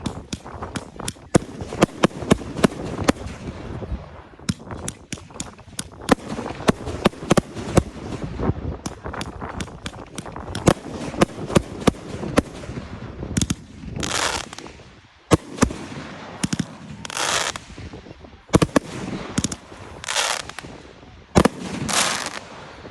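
Fireworks display: a dense run of sharp bangs and crackles. In the second half, four hissing bursts of about a second each come roughly three seconds apart, still mixed with bangs.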